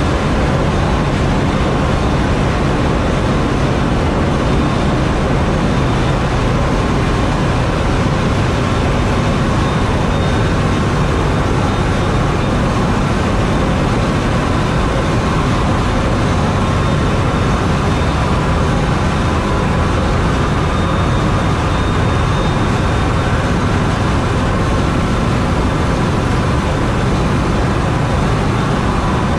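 Loud, steady machinery noise in a container ship's engine room, from the main diesel engine and the electric pumps running, with a few faint steady whines above it.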